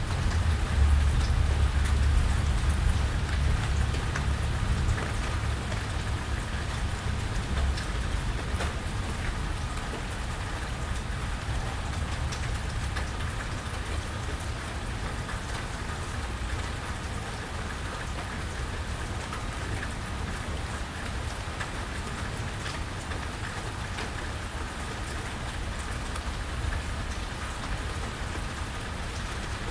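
Steady rain falling, with scattered individual drips. A low rumble is strongest at the start and fades out over the first several seconds.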